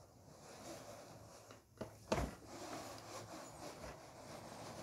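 A pleated fabric window shade being pulled down by hand, rubbing and rustling as it slides. There is a single sharp knock about two seconds in.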